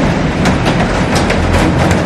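Heavy rain falling on a glass roof and garden: a steady, dense rush of rain with many sharp, separate drop impacts on the glass.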